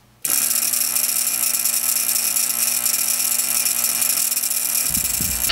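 Old Dayton quarter-horsepower, 1725 RPM electric motor running steadily with an abrasive wheel on its arbor, a constant hum that comes on abruptly about a quarter second in.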